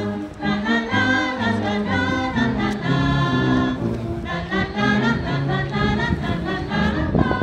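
High school wind band playing a tune: saxophones and brass holding chords over sousaphone bass notes.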